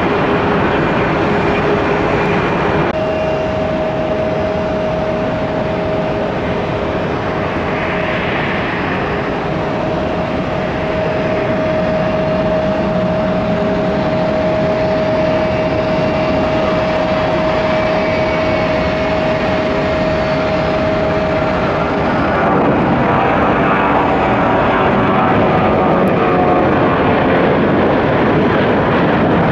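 Boeing 737-800 taking off, its CFM56 jet engines at take-off power: a steady rumble with a held whine. About three quarters of the way through the whine drops out and the jet noise grows louder as the aircraft passes. The first few seconds are another jet's engine noise, which cuts off abruptly.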